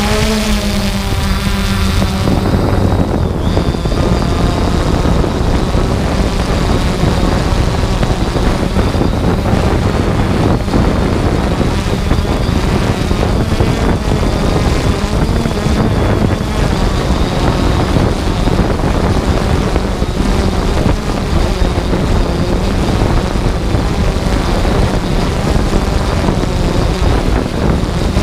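3DR Solo quadcopter's electric motors and propellers heard from the camera on the drone itself: a steady, loud propeller drone with a high wavering whine and wind noise on the microphone as it descends.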